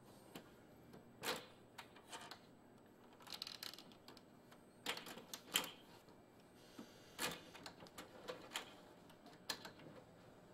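Epson Artisan 700 inkjet printer initialising after power-on, its mechanism giving a string of irregular clicks and clunks with a few short whirring runs.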